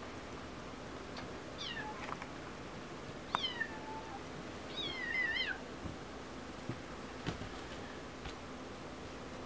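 Bengal kitten meowing three times: short, high-pitched calls that fall in pitch, the third longer and wavering. A few light taps follow later on.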